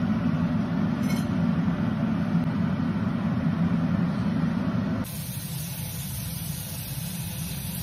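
A steady low rumble for about five seconds, then an abrupt change to a kitchen faucet running into a steel sink, a steady hiss.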